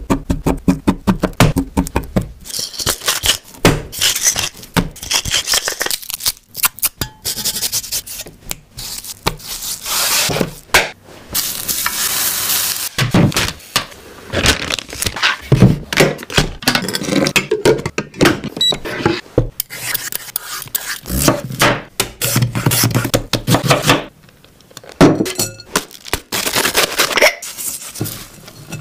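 Close-up cooking sounds: a fork pricking a raw steak on a wooden cutting board in rapid taps, then the steak sizzling in a frying pan, then handfuls of shredded cabbage rustling in a bowl near the end.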